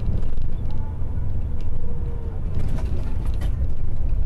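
Semi-truck heard from inside its cab while driving on a highway: a steady low engine and road rumble.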